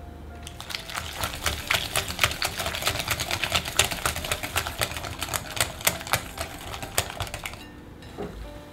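Wire balloon whisk beating egg into creamed butter in a glass mixing bowl: a fast, uneven run of clicks as the wires hit the glass, starting about half a second in and stopping shortly before the end. Background music plays underneath.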